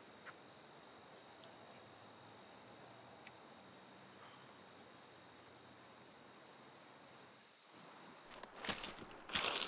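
Insects chirring in a steady, high, even trill over a grassy field. Near the end the trill stops suddenly and louder, irregular crunching takes over: footsteps over creek-bed stones.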